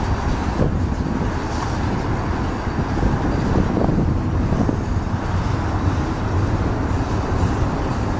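GE diesel locomotives (a C44-9W leading Evolution Series units) running under power as they pull a double-stack intermodal train past, a steady low rumble.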